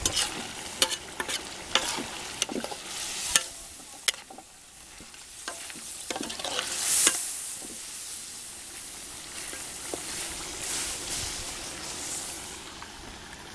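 A metal spatula stirring and scraping in a metal wok of duck stew, with sharp clicks of metal on metal in the first few seconds, over the steady sizzle of the stew cooking on a wood fire. A louder burst of hissing comes about seven seconds in.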